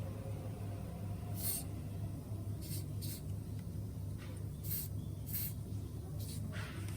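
Several short hissing bursts of spray from an aerosol can of lubricant being applied to the part, over a steady low hum.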